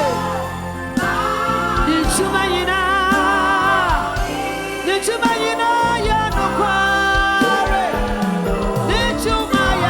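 Gospel worship music: a sung melody with wavering vibrato over a held bass line and regular drum hits.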